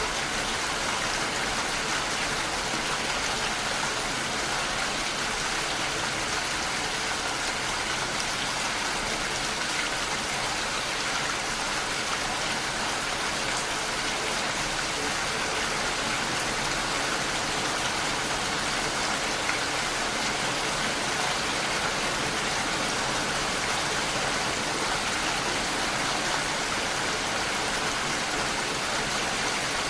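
Steady rain falling, an even hiss of many drops with no breaks or single distinct sounds.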